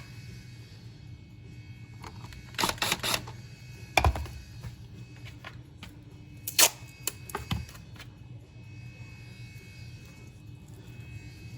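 Scattered clicks, rattles and a knock from handling a wall outlet's receptacle, screws and plastic spacers: a quick cluster of clicks about two and a half seconds in, a knock at about four seconds and a sharp click past six seconds, over a steady low hum.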